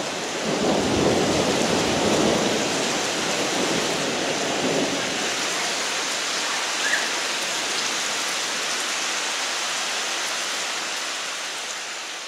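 Heavy rain pouring onto pavement, a steady hiss, with a low rumble of thunder in the first few seconds. The sound fades out near the end.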